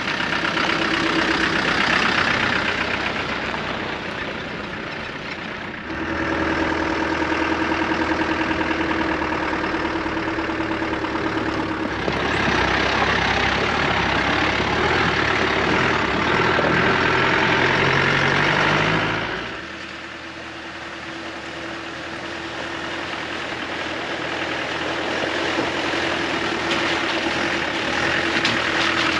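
Land Rover Defender's turbo-diesel engine running as the vehicle drives a rocky dirt track, heard in several short takes that change abruptly. In the last take the engine grows steadily louder as the vehicle approaches.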